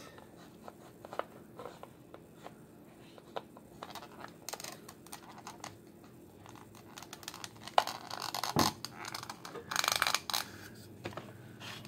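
Hard plastic toy figure being handled and fitted to its plastic base: scattered light clicks and scrapes of plastic on plastic, with a few short rustles and a sharper click about eight seconds in.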